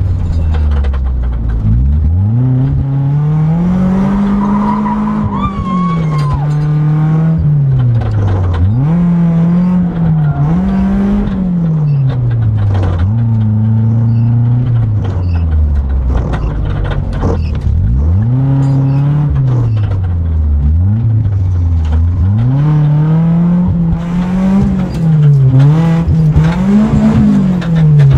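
BMW E36 drift car's engine heard from inside the cabin, revving hard and falling back every few seconds as it is driven through a drift run, with some tyre squeal a few seconds in.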